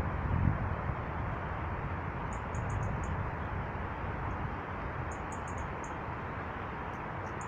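Small birds giving short, very high-pitched calls in quick runs of four or five, twice, with a few more near the end, over a steady rushing background noise.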